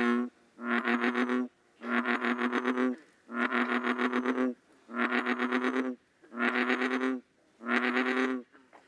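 American bullfrog giving its jug-o-rum call: a series of about six buzzy croaks, each about a second long, separated by short pauses.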